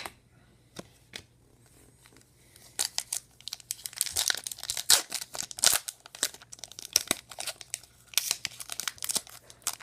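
Crinkly plastic or foil packaging being handled and torn, a dense run of crackles starting about three seconds in, after a couple of light clicks.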